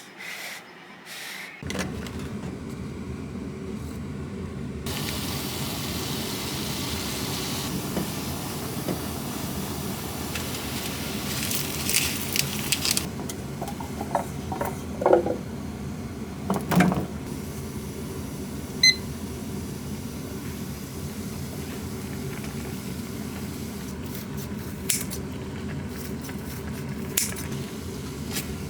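A kitchen appliance's motor switched on about two seconds in, running with a steady hum. A hiss runs over it for several seconds, and there are a few short clatters.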